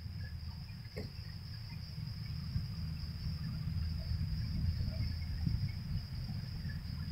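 Insects trilling steadily at a high pitch, with a low rumble underneath.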